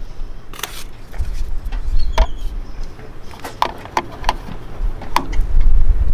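Mallet knocking a plastic center cap onto a trailer wheel's hub: a series of sharp, irregular taps, several a second apart. The cap is too big for the hub and is not seating.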